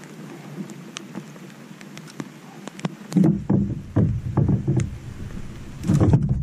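Handling knocks against a Wilderness Systems ATAK 120 kayak: a few light clicks at first, then from about three seconds in a run of dull knocks, with wind rumbling on the microphone.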